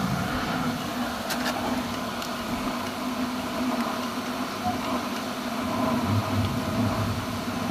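Electric water pump running with a steady motor hum, a couple of light clicks about a second and a half in.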